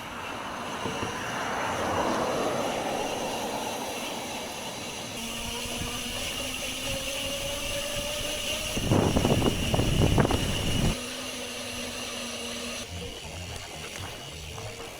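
Wind rushing over the microphone of an action camera while riding a bicycle, with a louder rumbling gust about two-thirds of the way through. A steady droning hum comes in around the middle and stops shortly after the gust.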